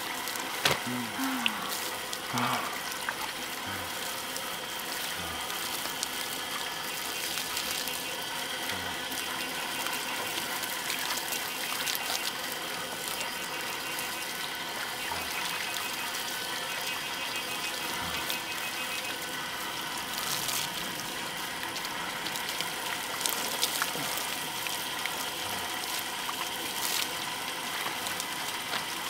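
Water running steadily from a garden hose and splashing onto skin and the ground, a continuous gushing spray.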